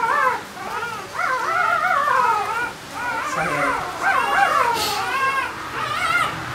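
Newborn Barbado da Terceira puppy crying while held and handled: a near-continuous string of high, wavering squealing cries with a couple of short breaks.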